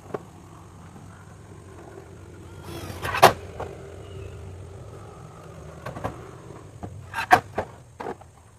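Several sharp knocks from work on a wooden frame, the loudest about three seconds in and a quick run of them near the end, over a low steady hum.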